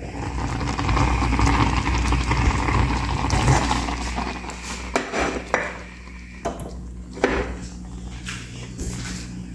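Kitchenware clinking and knocking, with a few sharp clicks about five, five and a half and seven seconds in, over a steady low hum.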